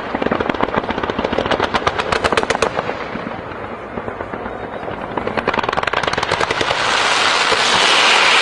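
Fireworks display firing in rapid volleys, many sharp bangs a second. The volleys ease off about three seconds in, then pick up again and swell near the end into a loud, dense crackling hiss.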